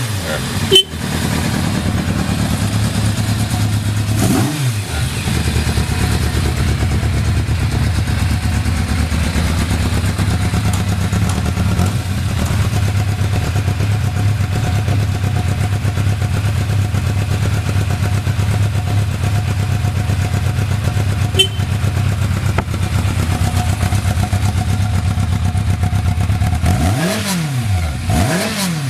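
Yamaha FZR1000 inline-four engine idling steadily, with a short blip of the throttle about four seconds in and a few quick revs near the end. The idle holds even with no abnormal noises, as the seller states. A single sharp click comes just under a second in.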